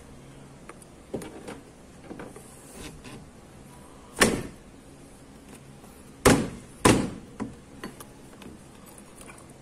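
Plastic lower trim under a car's front bumper being pressed and knocked back into place by hand: a few light taps, then three sharp knocks about four, six and seven seconds in.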